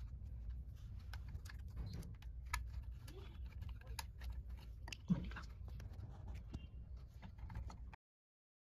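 Faint small metallic clicks and scrapes of an old sewing machine's shuttle assembly being handled, with its holding nuts turned by hand and the assembly lifted out, over a low steady hum. There is a slightly louder knock about five seconds in, and the sound cuts off to silence near the end.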